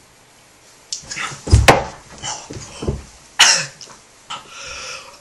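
A boy coughing, gasping and sputtering from the burn of a swallowed shot of Tabasco hot sauce, in a string of sudden bursts that begin about a second in. A heavy thump comes near the start of them.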